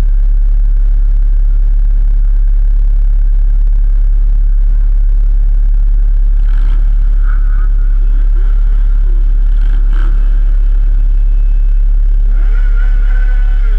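A group of motorcycles idling at a standstill under a heavy, steady low engine rumble, with nearby bikes revved up and down a few times in the middle and again near the end.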